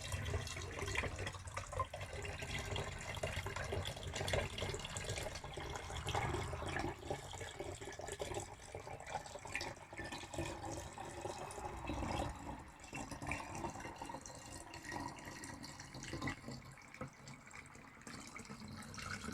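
Water being poured through a small funnel into a 2-litre plastic bottle, a steady splashing trickle that grows quieter near the end.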